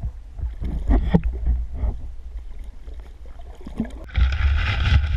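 Muffled underwater rumble with a few knocks as a hooked kokanee is reeled in. About four seconds in, the sound breaks the surface and is replaced by louder splashing as the fish thrashes at the boat.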